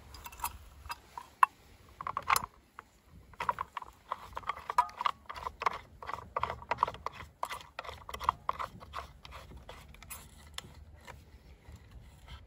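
Brush cutter handlebar being fitted into its clamp on the shaft, with a quick irregular run of small clicks and rattles as the parts seat and the clamp knob is turned, busiest in the middle and thinning out near the end.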